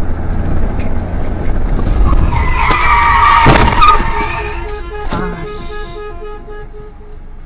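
Car tyres screeching in a skid, with a bang about halfway through, over a low road rumble. After that a rapid, evenly repeating beep sounds and slowly fades.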